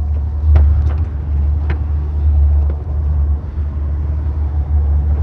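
Motorboat engine running in reverse under load, pulling against an anchor stuck on the reef, trimmed up so it lifts the stern. Heavy steady low rumble, with a few short knocks in the first two seconds.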